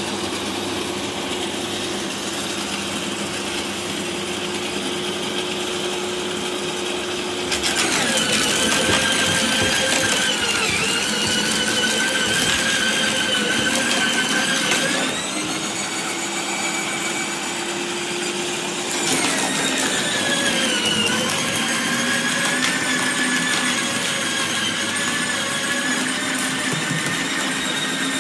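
Parkside PWH 2800 B2 electric roller shredder running with a steady motor hum. About a third of the way in a fresh green branch goes in and is crushed: the machine grows louder with a higher whine and crackling for several seconds, eases off, then loads up the same way again from about two thirds in.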